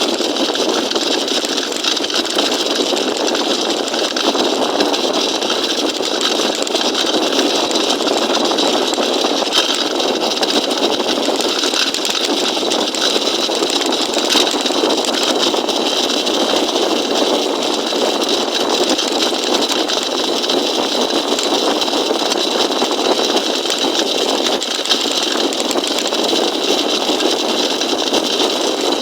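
A motorized bicycle's small engine running steadily at an even speed, with no revving.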